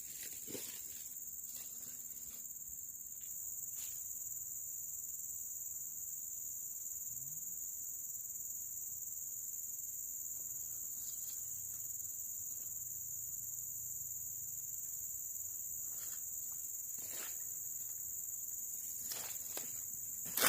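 Steady, high-pitched insect chorus droning without a break, with a few faint brief taps or rustles.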